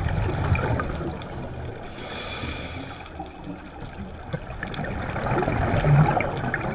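Scuba breathing heard underwater through a camera housing: bursts of exhaled bubbles gurgling out of a regulator, loudest at the start and again about six seconds in, with a short hiss between two and three seconds in.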